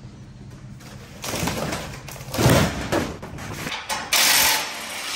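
Steel shipping-crate frame being unbolted: metal knocks and clatter, a loud knock about halfway through, and a short burst of a cordless impact driver near the end.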